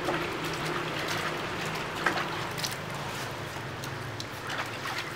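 Soapy water sloshing and dripping in a plastic basin as a wet poodle is scrubbed by hand, with a few small splashes, over a faint low steady hum.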